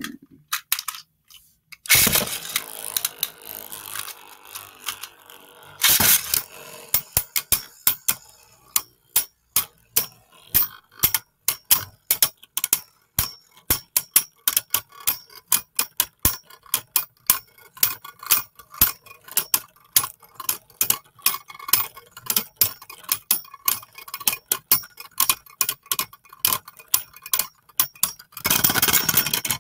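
Beyblade Burst spinning tops battling in a plastic stadium: a rush of noise about two seconds in and a sharp clash about six seconds in, then a long run of rapid clacking as the tops knock against each other, with another burst of noise near the end.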